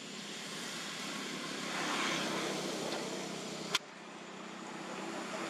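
Steady outdoor background noise that swells and fades about two seconds in, then a sharp click near four seconds where the sound cuts abruptly to a lower level.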